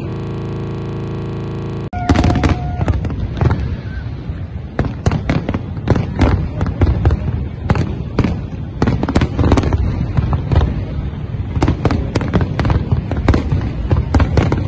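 Aerial fireworks display: dense, rapid bangs and crackling bursts, several a second. It opens with a steady buzz of about two seconds that cuts off abruptly as the bangs begin.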